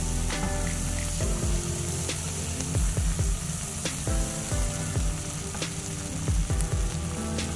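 Shrimp, squid, tomatoes and onions sizzling in a hot nonstick frying pan, stirred and pushed around with a plastic slotted spatula, with a few light scrapes. Background music with held notes plays underneath.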